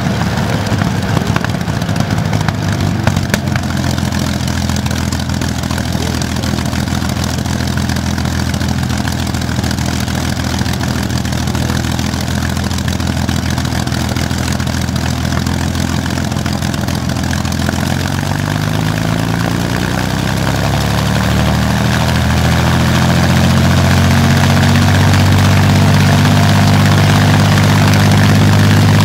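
Rolls-Royce Merlin V12 aero engine running on a test stand with its propeller turning, at a low steady speed with a few sharp cracks early on. About two-thirds of the way through it is throttled up, the pitch rising and the sound growing louder, then held at the higher speed.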